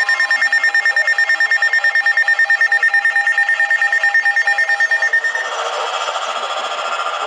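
Electronic emergency alert tone pulsing rapidly, about ten beeps a second, with a low wailing sweep up and down beneath it for the first second or so. About five seconds in it changes to a harsher, buzzier tone.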